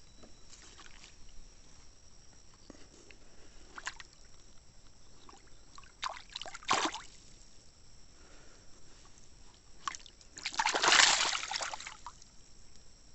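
Water splashing and sloshing in a few short bursts, the loudest lasting about a second and a half near the end. Crickets chirr steadily underneath.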